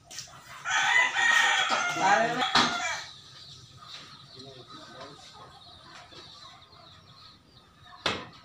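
A rooster crowing once, one long crow lasting over two seconds, followed by faint background chatter. A sharp knock near the end.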